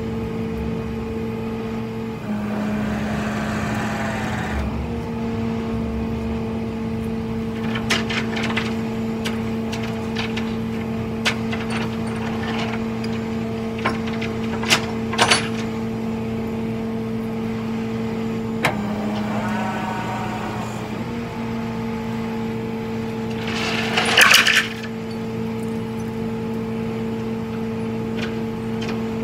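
Steady hum from the running tow truck, which briefly changes pitch twice, with scattered metallic clinks of chain hooks and tie-down hardware being fastened at the van's wheel on the steel flatbed. A louder metallic rattle comes late on.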